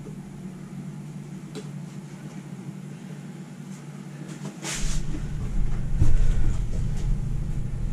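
A steady low hum, then a knock about five seconds in as a plastic bucket of self-leveling underlayment is lifted and tipped, followed by a louder low rumble as the slurry pours out onto the floor.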